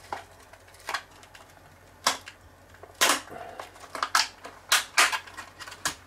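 Clear plastic clamshell packaging around a pair of SODIMM memory modules being prised open by hand: irregular sharp plastic cracks and crinkles, about eight of them, the loudest about three seconds in.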